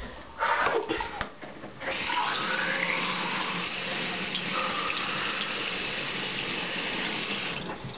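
Bathroom sink tap turned on and running steadily into the basin while syringes are filled with water, shut off abruptly near the end. A few short knocks of handling come first.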